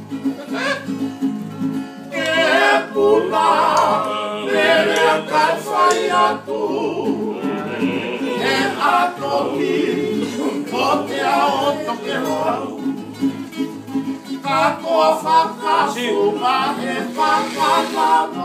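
Men singing a Tongan song to acoustic guitars played together; the guitar chords sound alone at first and the voices come in about two seconds in.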